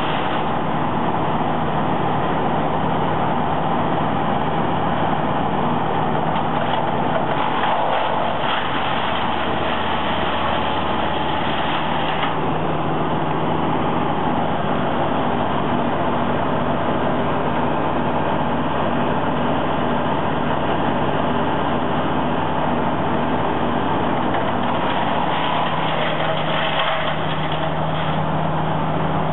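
Brush Bandit 90XP disc chipper with its 37 hp Wisconsin gas engine running steadily at speed. Leafy green branches are fed into it and chipped, giving two spells of harsher chipping noise, about a quarter of the way in and again near the end.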